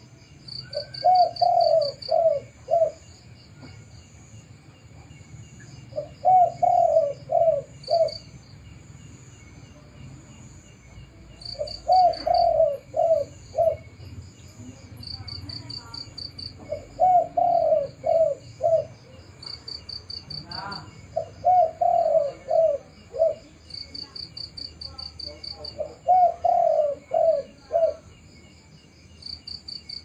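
Spotted dove cooing: one phrase every four to five seconds, six in all, each a longer first note followed by two or three short ones. High rapid cricket chirping runs steadily underneath.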